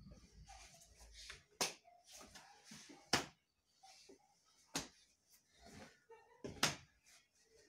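Sharp slaps and snaps from a martial artist's strikes and kicks in a solo form, four loud ones at irregular intervals, with softer rustling and footfalls between.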